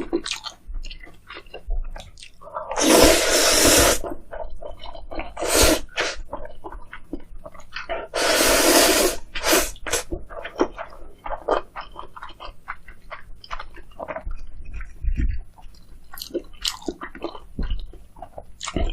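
Close-miked eating: steady chewing and crunching of fried, breaded food, with two loud slurps of stir-fried ramyun noodles about three and eight seconds in.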